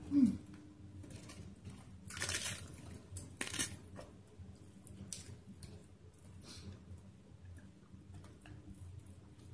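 Eating by hand: faint chewing and small clicks of fingers against a wooden bowl, with a short falling hum from the mouth right at the start. Two brief rustles come a couple of seconds in, as a crisp lettuce leaf is handled.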